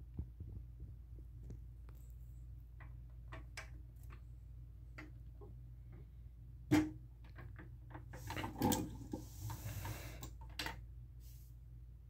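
A Jobsmart steel tool chest being closed by hand: scattered light clicks, then one loud metal knock, followed by a couple of seconds of clattering rattles as the lid and latches are worked, all over a low steady hum.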